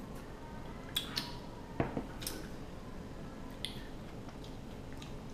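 Table-eating noises from a whole king crab meal: a few short, sharp clicks of crab shell and utensils, with one louder knock a little under two seconds in, over low room noise.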